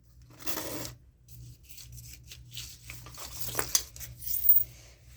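Rubbing and scraping handling noises with scattered small clicks and a sharper clink about three and a half seconds in, heard as a coin.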